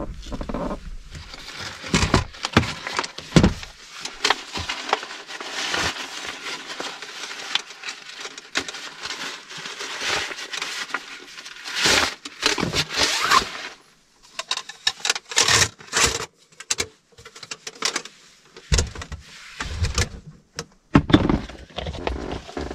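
Nylon sleeping bag rustling steadily as it is spread out and pressed flat, with many small crackles. In the second half this gives way to separate clicks and knocks of gear and a plastic storage box being handled.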